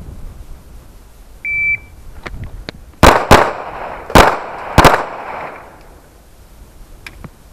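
An electronic shot timer beeps once, then about a second and a half later a 9mm Smith & Wesson M&P pistol fires four shots: a quick pair, then two slower shots, each followed by a ringing echo. It is a timed drill of two shots to the body and two to the head, with the last shot about 3.4 seconds after the beep.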